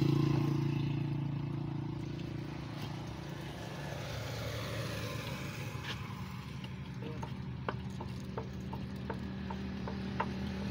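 A steady engine hum that fades over the first few seconds, then a run of sharp light clicks and taps from about six seconds in while the hum builds again faintly.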